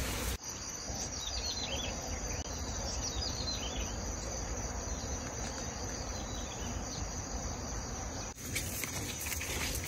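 Insects trilling steadily in a field, a constant high-pitched drone, with a few faint short chirps about one to three seconds in.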